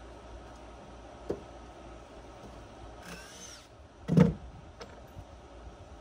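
A wooden wall frame being handled and set down on a plywood deck: a light knock, a brief squeak, then a heavy wooden thump about four seconds in.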